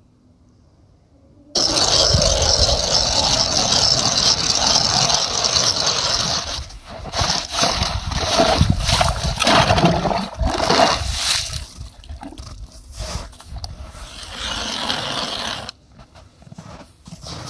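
Hand ice auger drilling through river ice: the blades shave and grind the ice. It starts suddenly about a second and a half in, runs steadily at first, then turns rough and uneven, and weakens near the end.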